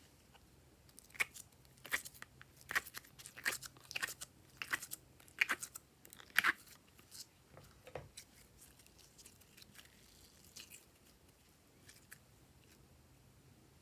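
Glossy slime being squished and stretched by hand, giving sticky crackling pops that come thick and fast for about six seconds, then only now and then.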